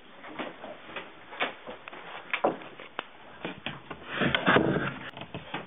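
Scattered small knocks and rustles of someone moving about, with a louder stretch of noisy rustling about four seconds in.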